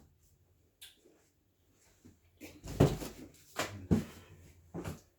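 Heavy cardboard-wrapped firework cakes being handled and set down: a small click about a second in, then a handful of short, dull knocks in the second half.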